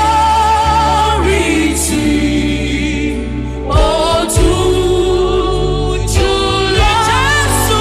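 Gospel worship music: several voices singing long held, gliding notes over a steady, sustained low accompaniment.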